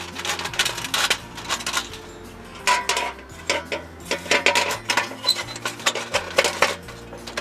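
Metal cookware and utensils clinking and scraping in quick, irregular strikes, over quiet background music.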